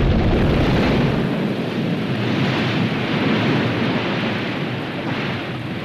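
Volcanic eruption: a lava fountain and ash column blasting from a cinder cone, making a continuous loud rumble with crackling hiss. The deepest bass drops away about a second in, and the noise eases slightly toward the end.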